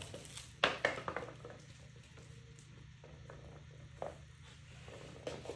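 Light taps and scuffs of a small puppy moving about and playing with toys on a vinyl floor, loudest in a quick cluster in the first second or so with one more tap near the end, over a steady low hum.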